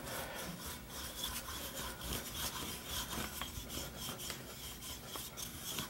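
Wooden rolling pin rolling over floured puff pastry dough on a wooden board: a faint, steady rubbing with small light ticks.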